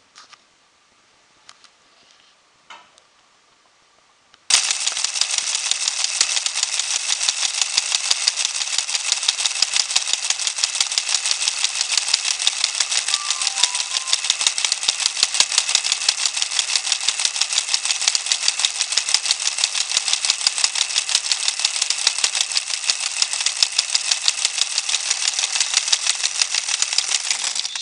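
Small electric motor of a Meccano model motorbike running its plastic gear train, a loud, fast, even rattle; it switches on suddenly about four and a half seconds in.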